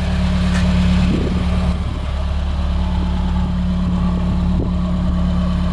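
Subaru WRX engine running steadily, a constant low hum with no revving.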